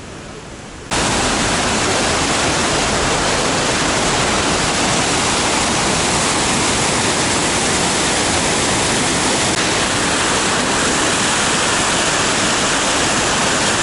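Loud, steady rushing of floodwater, a waterfall-like roar that starts abruptly about a second in and runs on without change.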